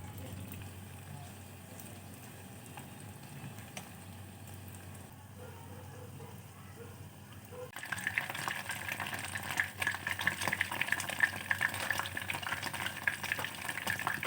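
Hot oil starts sizzling and crackling suddenly about eight seconds in, with dense sharp pops, as food goes into it to fry; before that only a faint low hum.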